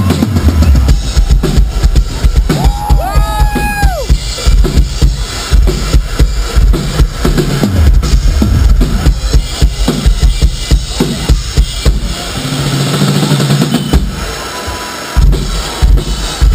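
Live rock drum solo played loud through a concert PA: rapid bass drum and snare hits in dense runs. A short whistle-like glide rises and falls over the drums about three seconds in, and the hits ease into a brief lull near twelve seconds before picking up again near fifteen seconds.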